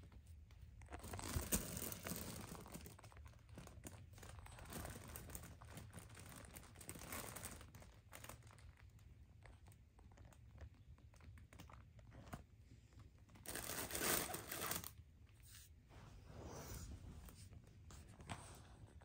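Fabric cat play tunnel rustling and crinkling in uneven bursts as a kitten scrambles in and around it. The loudest bursts come about a second in and again about two-thirds of the way through.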